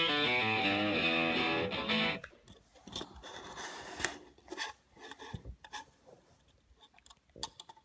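Guitar music that stops about two seconds in. After it come light clicks and taps of plastic model-kit parts being handled on a table.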